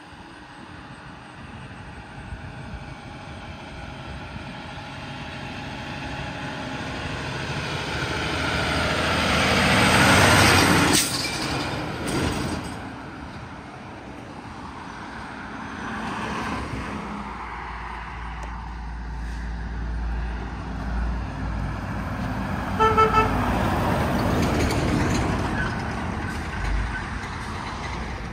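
Semi-truck driving past, its engine and tyres growing to loudest about ten seconds in, then fading as it pulls away. Later another vehicle approaches with a low rumble, and a brief horn toot sounds a few seconds before the end.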